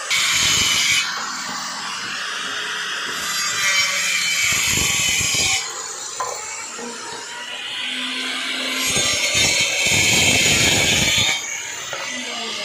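A woodworking tool cutting or shaving wood, in loud passes of a few seconds with short quieter gaps between.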